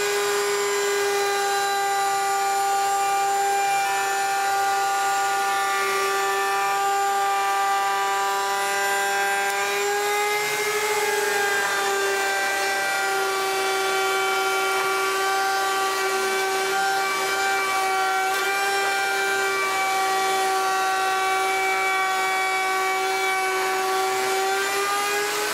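Router in a router table running at full speed, a steady high motor whine, while a bearing-guided bit cuts the curved edge of a walnut frame piece. The pitch sags slightly about ten seconds in as the bit takes a heavier cut.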